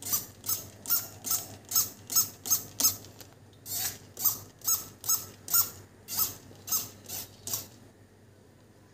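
Plastic trigger spray bottle being pumped rapidly to mist water onto potted plants: about two short hissing squirts a second, with a brief pause about three seconds in. The spraying stops about a second before the end.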